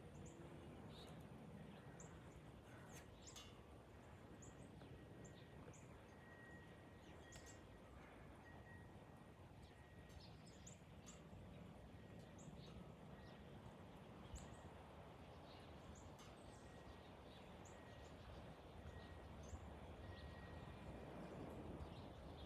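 Quiet outdoor ambience: small birds chirping in short calls now and then over a faint low rumble.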